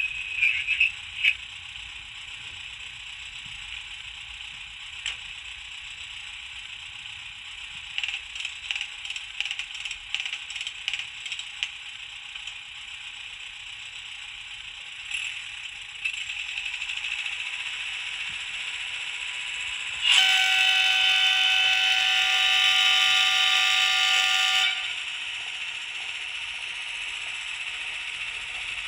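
The onboard sound decoder of an HO-scale Modellbahn Union VW KLv maintenance rail car plays its effects through a tiny speaker, so the sound is thin and without bass. A running sound with scattered clicks and rattles comes first. About 20 seconds in, a loud, steady horn tone is held for about four and a half seconds.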